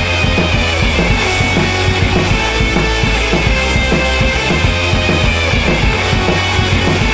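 Rock music with a drum kit and a steady beat.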